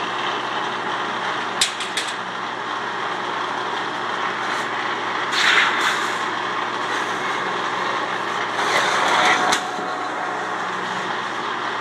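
Sheet-metal lock former running steadily, its motor and roll train humming, with a few sharp metallic clicks about a second and a half in. Louder rasping passages around five and a half and nine seconds in as a galvanized sheet edge is run through the Pittsburgh rolls, ending with a sharp click.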